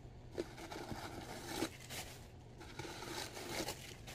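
Rustling and scraping as a handbag and its packaging are handled, in two stretches: one starting about half a second in, the other near the end.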